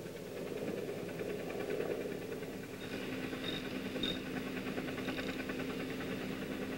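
Ratchet wrench clicking in a fast, even run of ticks as it tightens a bolt on a metal tie-down fitting, over a steady low machine hum that comes in about two and a half seconds in.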